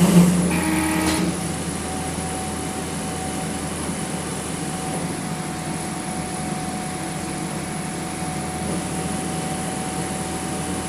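Home-built CNC machine's motors running steadily as it works through its first program. A steady hum carries a thin mid-pitched tone and a high whine throughout, and the sound is louder and busier for about the first second.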